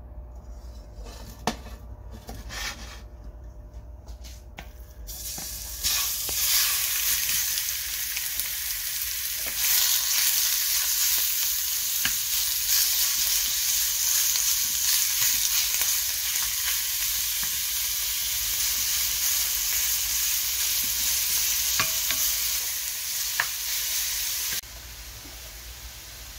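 Sliced pork frying in hot oil in a stainless steel pan: a loud sizzle starts suddenly about six seconds in and drops to a quieter hiss near the end. The meat is stirred, with a few light knocks of a wooden spoon against the pan.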